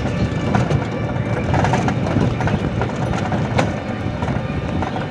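An auto-rickshaw under way on a rough road: a steady rumble of road noise with a dense clatter and rattle from the body.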